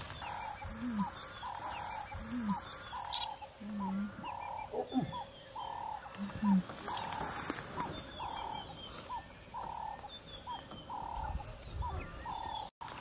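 Lion cubs growling during rough play, about four short low growls in the first seven seconds. Behind them, a call repeats about once a second throughout.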